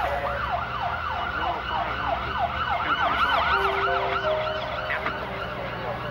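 Ambulance siren in a fast yelp, rising and falling about three times a second, fading out after about four seconds.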